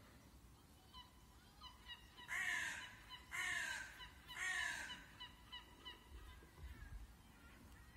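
Three loud drawn-out animal calls about a second apart, each falling in pitch, among fainter quick chirps.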